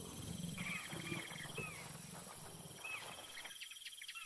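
Low animal growling in short broken stretches, with a few short high chirps over it; the growling stops about three and a half seconds in.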